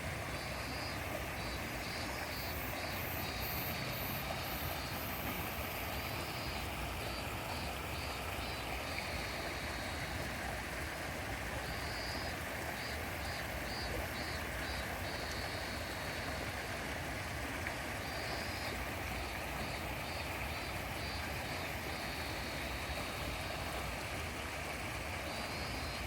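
River water flowing with a steady, continuous rush. Every few seconds a bout of high, rapidly repeated chirps sounds over it.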